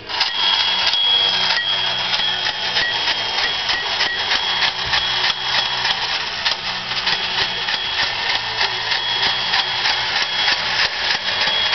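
Battery-operated tin lithograph Fire Chief toy car running: its small electric motor and gears clatter with a dense, rapid clicking, with a thin high whine above. It starts suddenly as the toy is switched on.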